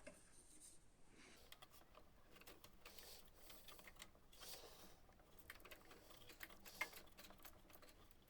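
Faint, irregular small clicks and light plastic rattles of hands working inside a printer, taking off its drive belt, with one slightly louder click near the end.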